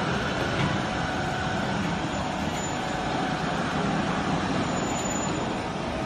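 Hydraulic pump and electric motor of a vertical waste baler running steadily during a pressing cycle.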